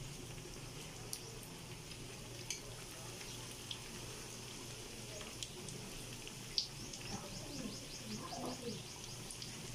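Breaded pork chop deep-frying in hot oil in a wok: a steady sizzle with scattered crackles and pops. A sharp pop or clink about six and a half seconds in is followed by a quick run of crackles as the ladle stirs the oil.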